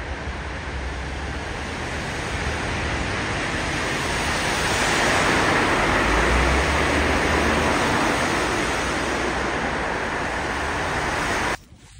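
Steady rushing noise of wind buffeting the phone's microphone outdoors in falling snow, with an uneven low rumble; it swells a little midway and cuts off suddenly near the end.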